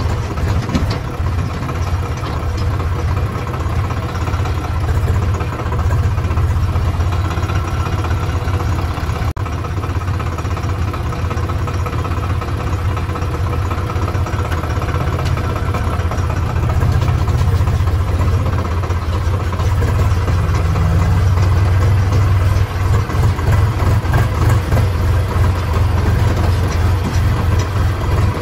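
Farm tractor's diesel engine running steadily at low speed, heard close up from the driver's seat. It grows a little louder and rougher in the last third.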